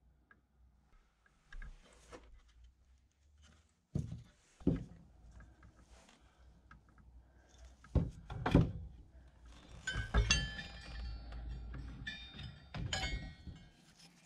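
A few dull knocks, then old iron horseshoes hung on a wooden rail being handled, clinking and ringing against one another.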